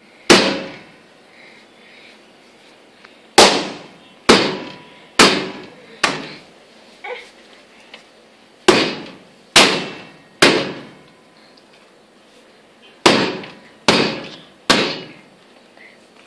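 Bread dough for nan-e-barbari slapped hard onto a granite countertop while being kneaded. Eleven sharp slaps: one near the start, then runs of four, three and three at about one a second, with short pauses between runs.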